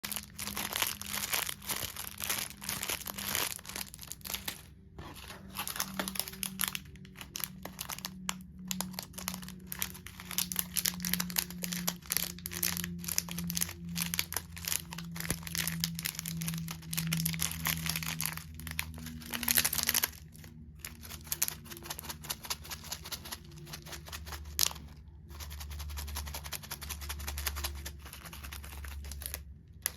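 Slime being squeezed and worked by hand, giving dense, irregular crackling and popping clicks with brief pauses between handfuls.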